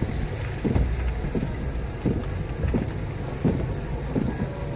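Car on the move: a steady low rumble of road and engine noise, with soft knocks recurring about every two-thirds of a second.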